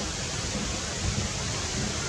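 Steady rushing outdoor noise with an unsteady low rumble underneath, without any distinct events.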